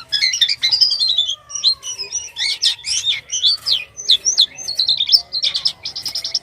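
Jalak kapas starling singing a fast, varied string of chirps, whistles and sliding notes, some falling in pitch, with hardly a pause.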